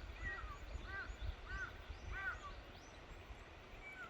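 Birds chirping: a quick series of short, arched chirps, two or three a second, fading near the end, over a low rumble.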